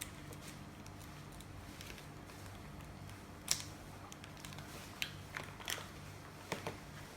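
Handling noise: a few scattered small clicks and taps, the sharpest about three and a half seconds in, over a faint steady low hum.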